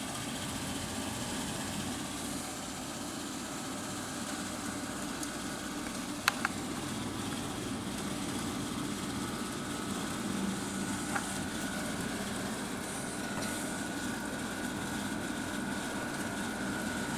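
Haier 5,000 BTU window air conditioner running on low fan with the compressor on: a steady hum and blowing, with water being sloshed around by the outdoor fan. There is one sharp click about six seconds in, and a faint higher whine joins the hum partway through.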